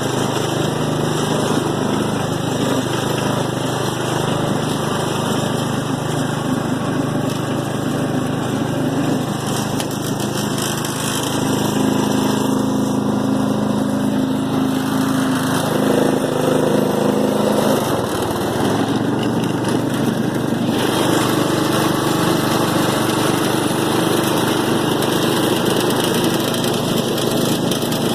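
Allis-Chalmers riding lawn mower's engine running steadily. Its pitch shifts briefly partway through.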